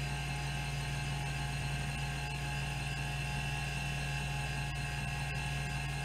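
Rodime RO252 10 MB hard disk drive spinning at 3600 RPM with a steady hum and whine, while its stepper-motor band actuator steps the heads back and forth through a seek test pattern, giving a fine rapid ticking.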